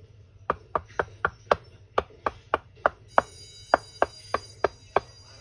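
A quick, even run of sharp taps, about three to four a second, with a faint high steady whine joining over the second half.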